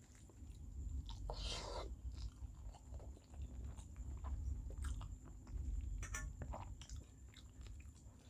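Close-up mouth sounds of someone eating rice with small-fish curry: chewing and biting with many small wet clicks and crunches, and a short louder rasp about a second and a half in.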